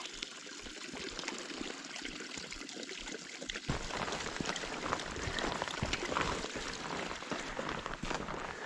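A small flow of water trickling steadily, as from a mountain spring or brook. About four seconds in it grows a little louder and fuller.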